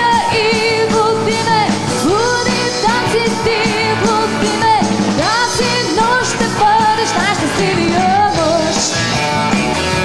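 Live rock-and-roll band playing: a woman sings long, sliding notes with a wavering vibrato over drums and electric and acoustic guitars.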